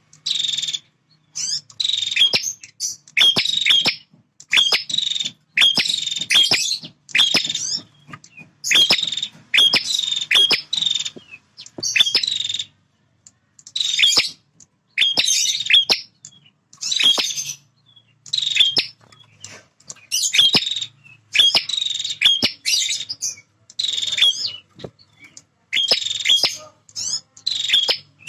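Male prinia (prenjak) singing loudly and continuously: rapid, high, chattering song phrases of about a second each, repeated over and over with short pauses.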